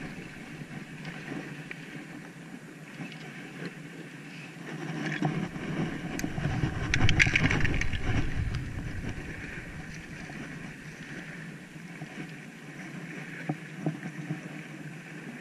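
Wind buffeting the microphone over sea water lapping at shore rocks, swelling louder for a few seconds in the middle.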